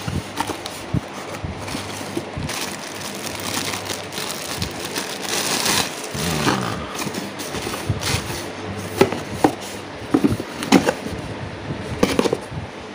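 Plastic wrapping crinkling and cardboard box flaps rustling as a spinning reel is unpacked by hand. The rustling is hissiest about halfway through, and several sharp clicks and knocks come near the start and toward the end.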